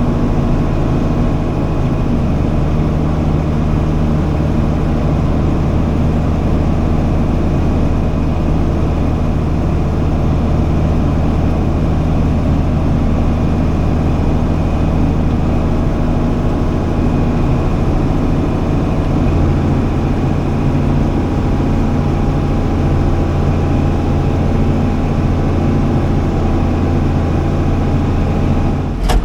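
Large diesel engine of farm harvest machinery running steadily, a loud, even drone with a low hum.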